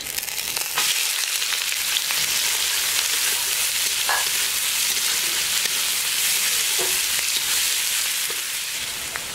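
Chopped onion frying in hot oil with whole spices: a steady sizzle that swells about a second in, with a few light knocks from stirring.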